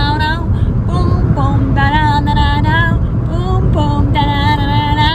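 A woman singing, three long held notes with short breaks between them, over the steady low road rumble of a moving car heard from inside the cabin.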